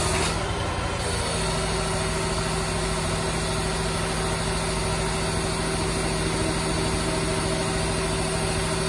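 Crane truck's engine running steadily at a fast idle while the boom's hydraulics lower a load, with a slight dip about a second in.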